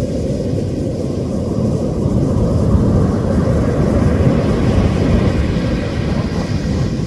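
Wind buffeting the microphone in a steady, rough low rumble, with a broader rushing hiss swelling from about two seconds in and easing near the end.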